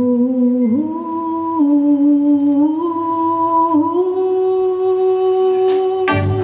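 A woman's voice singing unaccompanied in slow, long held notes that step upward in pitch. The band, led by guitar, comes in just before the end.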